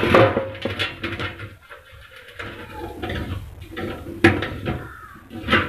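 Metal charger cabinet being handled while a plastic fitting is pressed into a hole in its panel: irregular clattering and scraping, with knocks at the start, about four seconds in and just before the end.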